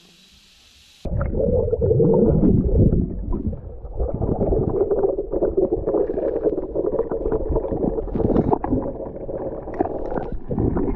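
Underwater recording: muffled rumbling and gurgling of water moving around the camera as the spearfisher swims, with scattered knocks and clicks. It cuts in abruptly about a second in, after a brief quiet hiss.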